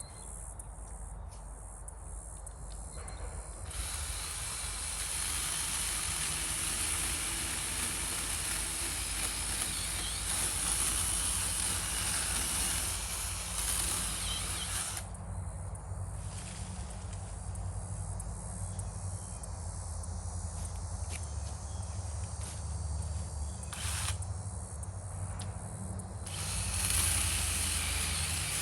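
NaTiddy cordless mini chainsaw cutting through the wood of a downed tree in long stretches, with a quieter pause in the middle of the cutting.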